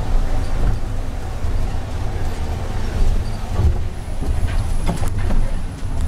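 Nova Bus LFS articulated city bus under way, heard from on board: a steady low engine and road rumble, with a few rattles and knocks from about four to five and a half seconds in.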